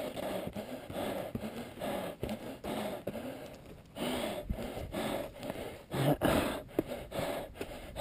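A trail runner's hard, fast panting, sped up along with the footage, mixed with footsteps and scuffs on rock and dry brush. The louder knocks and thumps about six seconds in come from scrambling up the boulders.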